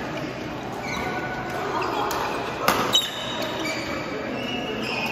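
Badminton rally: sharp racket strikes on the shuttlecock, the two loudest close together about halfway through, with short high squeaks of court shoes on the floor, echoing in a large hall.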